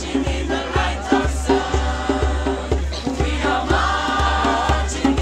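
Music with a steady low beat and several voices singing together like a choir.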